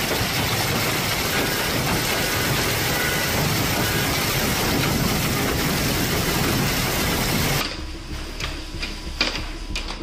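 Heavy hail and rain pelting parked cars and pavement, a loud steady hiss. About three-quarters of the way in it cuts to a quieter shower with scattered sharp ticks of hailstones striking, beside a gutter overflowing with water.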